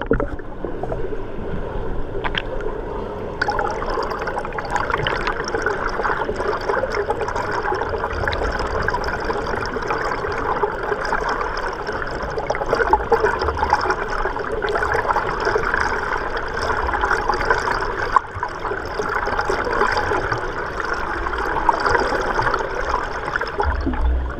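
Swimming pool water heard from underwater: a steady muffled rush with a fine crackle of bubbles and swimmers' strokes.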